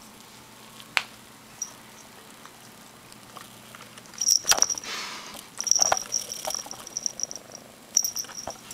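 A few light clicks, then close-up rustling and knocks of fur brushing and handling noise from about four seconds in, with a high metallic jingle of collar tags that comes and goes.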